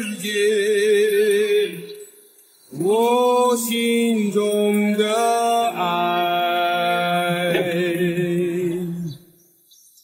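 Slow sung melody from the theme song: a singer holding long notes with vibrato, with a short pause about two seconds in and another near the end.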